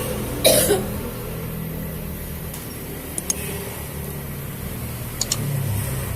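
One short, harsh cough about half a second in, over a steady low hum, followed later by two faint pairs of sharp clicks.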